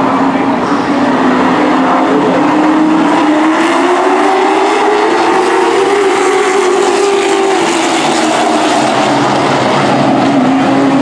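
Pack of Super Truck racing engines running hard around the track. The engine note climbs as the trucks come past close by about halfway through, then drops away again.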